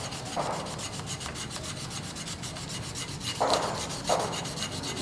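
800-grit sandpaper rubbed by hand over an aluminium Vespa engine crankcase in quick, even back-and-forth strokes, with a few longer, louder swishes. This is the hand-sanding stage that takes the darkened casing down to bright metal before finer paper.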